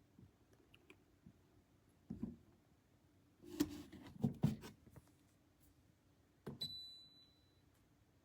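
A few soft knocks and clunks from handling the humidifier, then a click about six and a half seconds in followed by a short high electronic beep lasting about a second.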